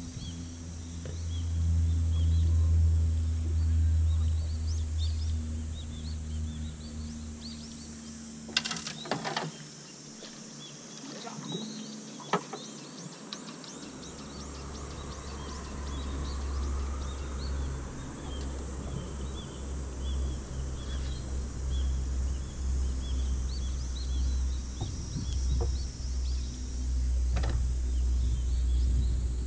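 Outdoor ambience: a low rumble with small birds chirping faintly throughout. Two sharp knocks come about nine and twelve seconds in, and the rumble drops away for a few seconds between them.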